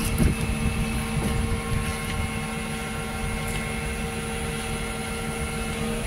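Tata Hitachi Super+ diesel crawler excavator running steadily: a continuous engine rumble with a steady whine on top and a few light knocks in the first few seconds.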